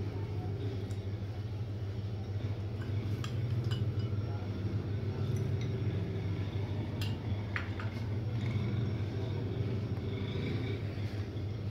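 Steel spoon stirring chickpea chaat and crunchy namkeen in a glass bowl, with a few scattered clinks of the spoon against the glass. Underneath is a steady low hum.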